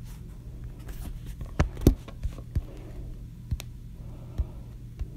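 About six short, sharp taps and clicks, the loudest about two seconds in, from fingers tapping and handling a phone's touchscreen. A steady low hum runs underneath.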